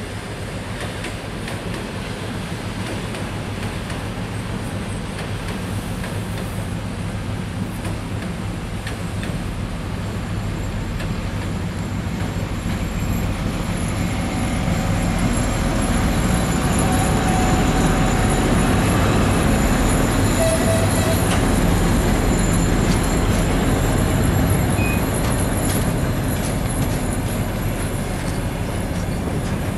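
Two-section 2M62 diesel locomotive's two-stroke 14D40 engines running as it approaches and passes, growing louder toward the middle. Its loaded flatcars then roll past with wheel rumble on the rails and a thin, high wheel squeal.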